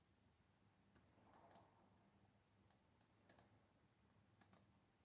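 Faint computer mouse-button clicks, four or five scattered presses, each a quick double tick, as text is selected and a menu opened.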